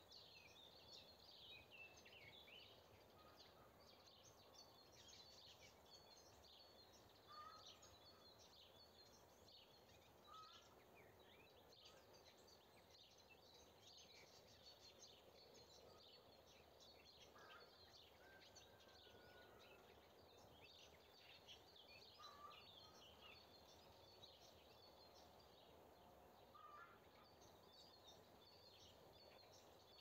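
Faint morning chorus of wild birds: many small birds chirping in high notes throughout, with a lower short call note every few seconds, over steady low background noise.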